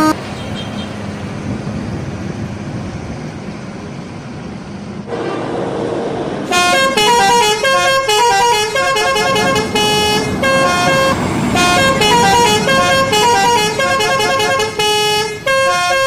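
Bus engine and road noise, then, from about six seconds in, a bus's telolet musical horn playing a fast melody of short stepping notes, several sounding together, cut off suddenly at the end.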